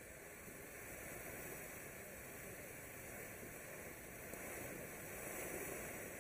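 Winda 'Silent Mode' low-noise firework fountain burning with a soft, steady hiss of spraying sparks, swelling slightly in the second half.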